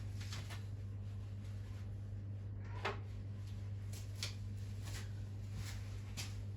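Scattered light clicks and taps of hand tools on the engine's bottom end, about one a second with a sharper knock about three seconds in, as the big-end caps are being undone, over a steady low hum.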